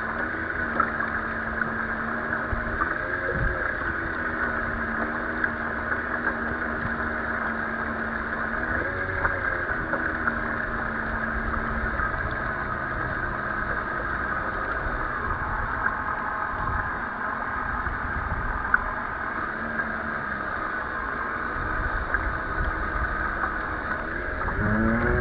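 Small motor of a radio-controlled boat running steadily, its hum wavering and gliding up in pitch now and then, most sharply near the end, over wind and choppy water.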